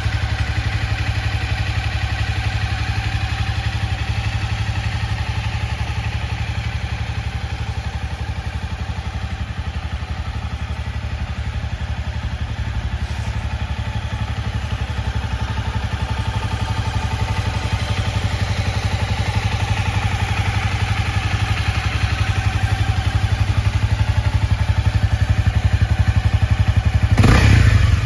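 Honda CB250F's single-cylinder engine idling steadily, with a short louder burst near the end.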